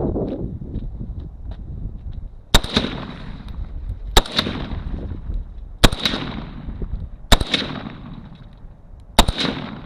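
Five single rifle shots from an AK-pattern rifle in 7.62x39, fired slowly about every one and a half seconds, each followed by a trailing echo.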